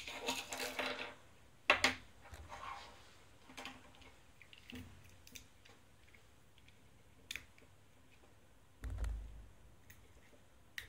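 Plastic mould parts and small pieces being handled and fitted together, making scattered light clicks and knocks. There is a sharper click about two seconds in and a dull thump against the table toward the end.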